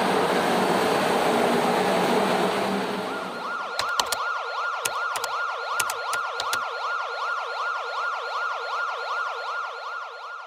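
A steady rushing noise for about three seconds, then an electronic siren sound effect: a fast yelp rising and falling about three times a second, with several sharp clicks in its first few seconds, fading toward the end.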